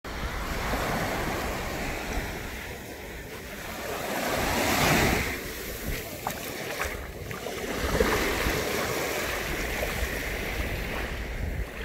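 Small sea waves washing in over a sandy shore, swelling louder about five seconds in and again near eight seconds, with wind rumbling on the microphone.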